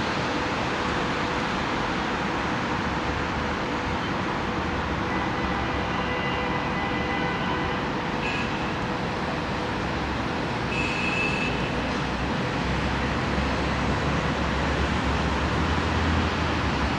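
Steady distant city traffic noise rising from the streets below, with a few faint, brief high tones in the middle and a low rumble growing slightly louder near the end.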